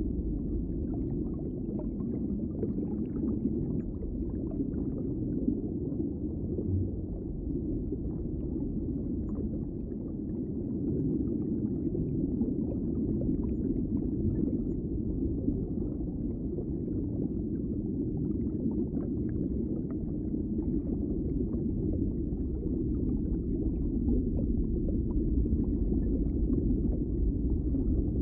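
Underwater ambience: a steady, muffled low rumble of water with faint crackling on top.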